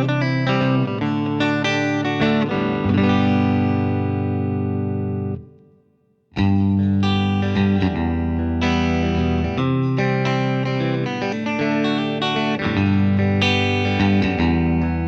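Maybach Lester 59 humbucker electric guitar played through an amplifier on a clean tone, with chords and notes ringing out. The playing dies away about five and a half seconds in, then starts again and carries on.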